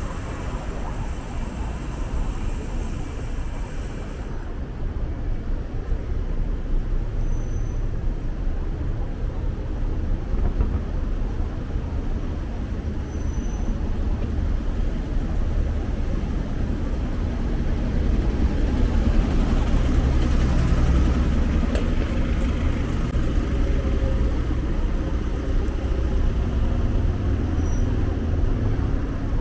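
City road traffic heard from a moving bicycle: a steady low rumble of passing motor vehicles, growing louder about two-thirds of the way through.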